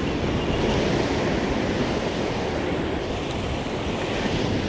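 Ocean surf washing steadily against a rock ledge, with wind rumbling on the microphone.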